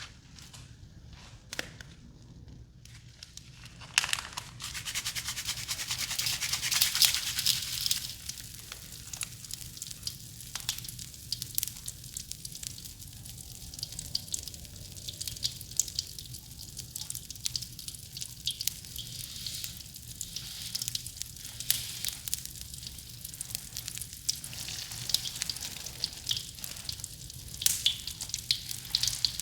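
Mr Bubble Bath Crackles popping and crackling as they dissolve in a wet soap mix: a dense patter of tiny pops like popping candy or a crackling fire. It starts with a few separate clicks, is thickest a few seconds in, then carries on more lightly.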